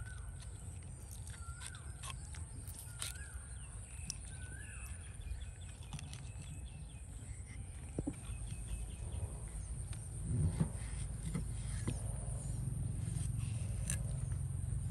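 Outdoor rural ambience: a steady high-pitched insect drone, a few short bird calls in the first few seconds, and scattered clicks and knocks, with a louder handling noise about ten seconds in.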